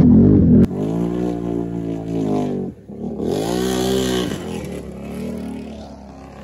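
ATV engine revving up and easing off twice. It is loud at first, drops sharply lower under a second in, and fades after the second rev.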